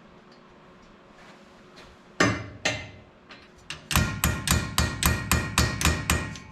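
Metal tool hammering on metal with a ringing tone: two separate blows, then a fast run of about a dozen blows at roughly five a second. The blows are struck with a ratchet used as a hammer.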